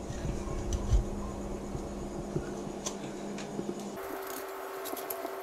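Steady low hum of room tone, with a soft thump about a second in and a few faint ticks.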